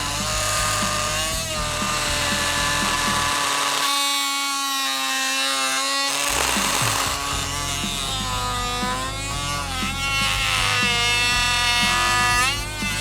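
Oscillating multi-tool cutting with a carbide-tooth blade, its whine bending up and down in pitch as the cut loads it. Background music with a steady beat plays over it, its bass dropping out for a couple of seconds partway through.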